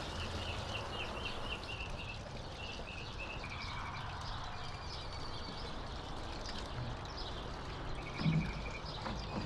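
Birds chirping in short repeated trills over a steady low rush of water, nutrient solution flowing from a solar pump through hydroponic pipes and growing tubes.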